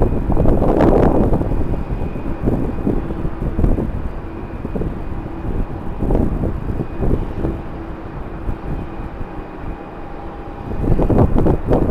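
Strong wind buffeting the microphone in gusts, loudest at the start and again near the end, over the faint steady hum of a distant jet airliner's engines.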